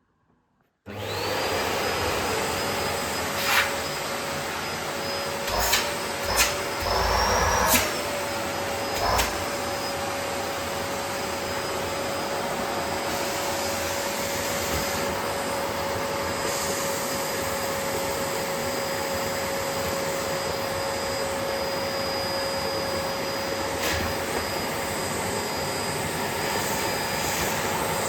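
Bosch BGS21X320 bagless vacuum cleaner switched on about a second in, its motor running up to a steady whine with a hum beneath it. A few sharp knocks and clatters come in the next several seconds, and the pitch wavers briefly in between, before it runs on evenly.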